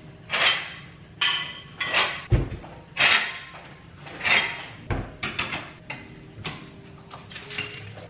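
Hands-on cleaning at a kitchen window ledge: several short swishes of spraying and wiping, two dull thumps a little after two and five seconds in, and a run of light taps and clicks near the end as items are handled.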